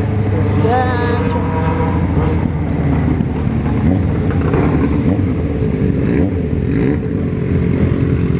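Motorcycle engine running under way with wind rushing over the helmet-mounted microphone, its pitch drifting up and down as the rider changes speed.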